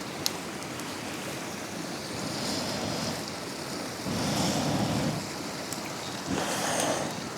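Wind gusting in surges with a steady rushing, and a single sharp crackle from the campfire shortly after the start.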